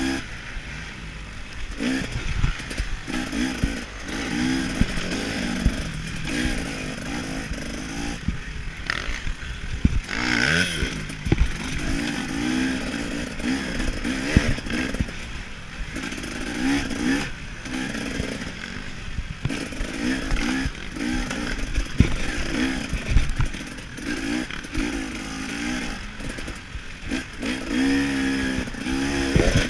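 KTM 300 XC-W two-stroke dirt bike engine ridden hard, revving up and falling back over and over, heard from the rider's chest, with sharp knocks and clatter from the bike over rough ground.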